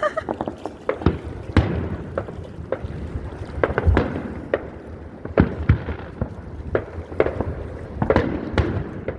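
Aerial fireworks show: a fast, irregular string of sharp bangs from shells bursting, several coming close together.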